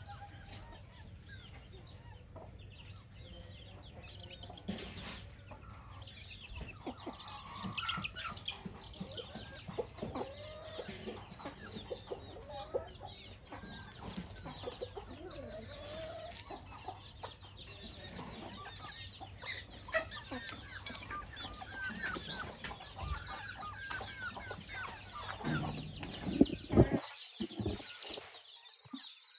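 A flock of domestic chickens: hens clucking and chicks peeping continually in short, high calls, with a few louder sharp sounds near the end.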